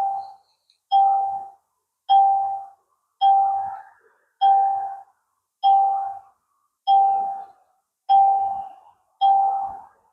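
An electronic chime sounding nine times, about once a second: each is a single bell-like ding that fades out before the next.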